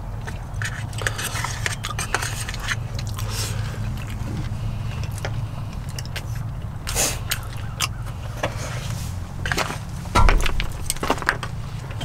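A plastic spoon clicking and scraping against a plastic food container during eating, in many short, irregular clicks, over a steady low hum. A louder thump about ten seconds in.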